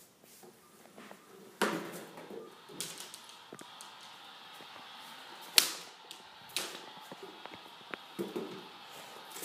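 Handling noise from a handheld phone camera being moved about: scattered bumps, clicks and rustles, the loudest a sharp knock about five and a half seconds in.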